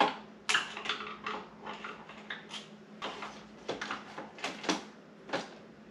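Irregular light knocks and clicks, more than a dozen, from motorcycle fork and headset parts being handled and pushed into place.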